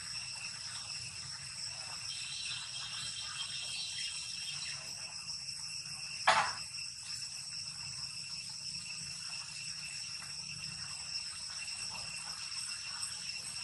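Steady shrill drone of an insect chorus at several high pitches, with one short, sharp, loud sound about six seconds in.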